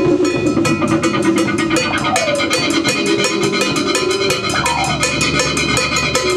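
A band jamming loosely, live in a room: a fast, steady drum beat under a held low tone, with notes sliding down in pitch twice.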